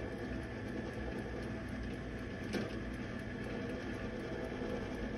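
Compact Showtime countertop rotisserie oven running, its motor humming steadily as the spit turns a whole chicken. A single short click comes about halfway through.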